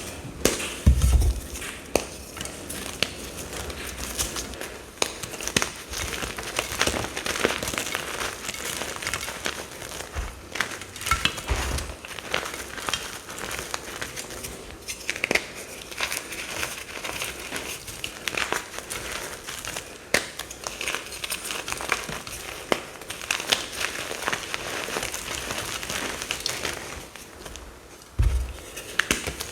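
Compressed mica powder bombs being crushed, a continuous crunchy crackling and crumbling, with a few dull thuds about a second in, around the middle and near the end.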